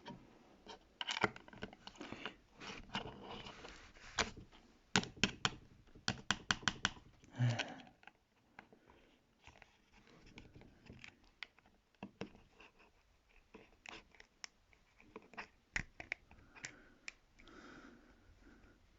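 Plastic tablet parts being pried and handled during a teardown: irregular clicks, scraping and crackling, with a quick run of clicks in the middle and sparser ones later.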